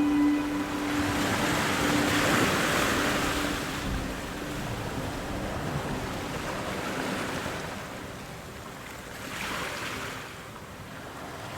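Waves washing in, a rushing swell about two seconds in and another, weaker one near the end.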